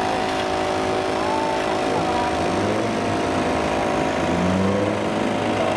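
An engine running at a steady speed, with faint voices in the background.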